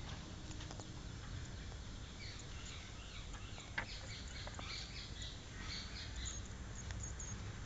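Small birds chirping in short high notes over a low steady outdoor hum, with one sharp click about four seconds in.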